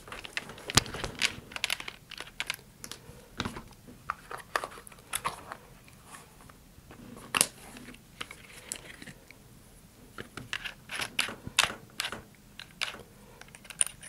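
Irregular small clicks and taps of a handheld drill's chuck and metal drill bits being handled while a bit is swapped for a 1/4 inch one, with the drill not running. Bits rattle in a plastic bit case now and then.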